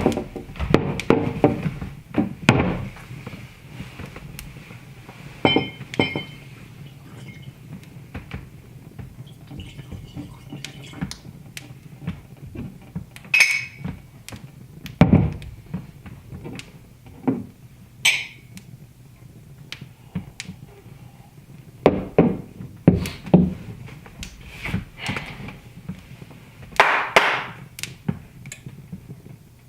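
Wood fire in a fireplace crackling, with sharp pops and snaps at irregular intervals over a steady low hum.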